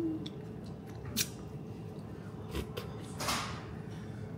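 Eating a wrap from its paper wrapper: a few short sharp clicks and a brief crinkling rustle of the paper a little after three seconds in, as the wrap is lifted and bitten.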